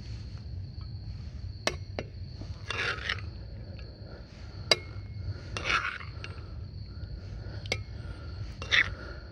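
Cookware being handled: short scrapes and sharp clinks of a utensil against a pot, three scrapes spaced a few seconds apart with single clicks between them. A thin steady high tone runs underneath.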